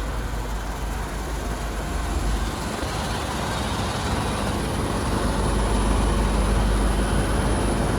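Inverter-driven residential heat pump outdoor unit running: steady fan whoosh over a low compressor hum, growing slightly louder in the second half.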